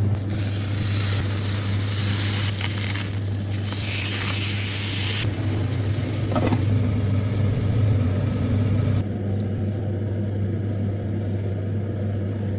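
Food sizzling in a hot pan over a steady low hum. The sizzle is strongest for the first five seconds, then eases off and fades sharply about nine seconds in.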